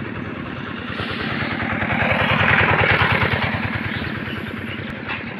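Motorcycle engine running, getting louder to a peak about halfway through and then fading.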